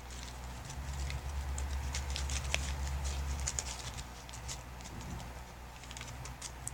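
Rustling and crinkling of a sheet handled by hand at close range, with scattered sharp ticks, over a steady low hum that swells for a few seconds after the start.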